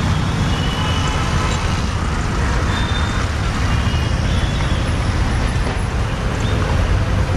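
Road traffic heard from a motorcycle creeping through a busy junction: a steady rumble of engines, with a few faint short high tones.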